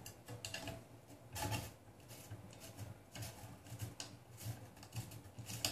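Faint, irregular small clicks and rubbing from hands fitting a bolt at a corner of a 3D printer's PCB heatbed.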